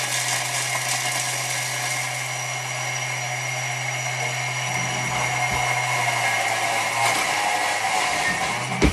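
Thermomix food processor running at high speed, its blade chopping Parmesan cheese and a garlic clove; a loud, steady whir with a low hum, and a short knock near the end.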